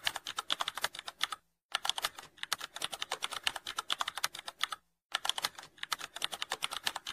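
Computer keyboard typing sound effect: rapid keystrokes clicking several times a second, in runs broken by two brief pauses, matching on-screen text being typed out.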